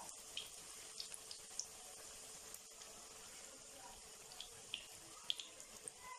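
Samosas deep-frying in hot oil: a faint steady sizzle with scattered small pops and crackles.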